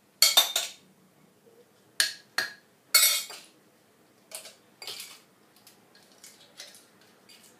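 Metal fork clinking against a glass bowl and a glass jar as blanched garlic cloves are scooped out and dropped in. A cluster of sharp clinks comes at the start, single loud ones about two and three seconds in, then lighter, scattered taps.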